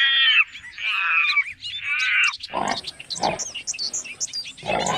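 Three loud, wavering, bleat-like animal calls, each about half a second long. Then, from about halfway through, a different scene takes over: quick high bird chirps over rougher, lower animal calls.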